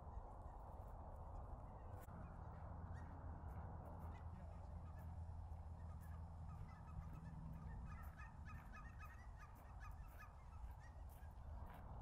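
Flock of cackling geese calling: a steady background of massed chatter, with many short, high calls that come thicker from about four seconds in.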